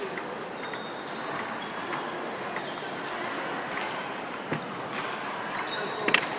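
Table tennis ball clicking off bats and table during practice play: sharp, irregularly spaced clicks over steady background noise, the loudest few coming close together near the end.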